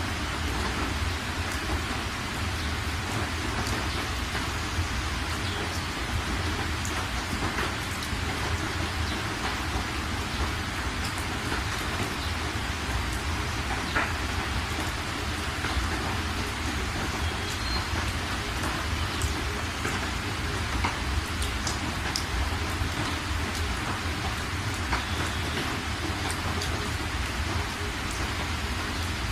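Heavy rain hitting a moving car's windshield and roof, heard from inside the cabin: a steady hiss dotted with small drop ticks, over a low, even rumble of the car on the wet road.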